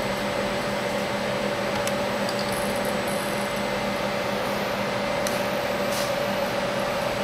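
Steady hum of a powered-up CNC milling machine, with a constant mid-pitched whine over a lower drone and a few faint clicks.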